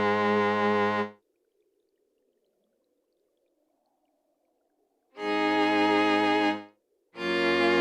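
Roland Verselab MV-1 playing a bowed-string (cello/violin) patch in long held low notes with a slight vibrato. A note cuts off about a second in; after a pause of about four seconds a second note sounds briefly, and a third begins near the end.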